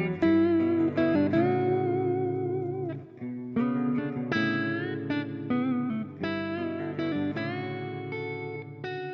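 Instrumental music: a guitar plays a melody of plucked notes with bends and vibrato over steady low notes.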